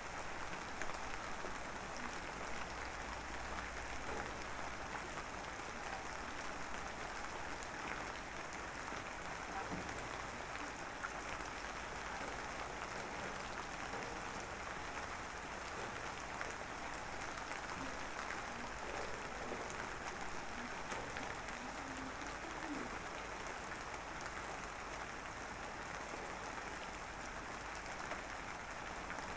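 Light drizzle falling, a steady fine patter of many small drops with scattered individual drop ticks.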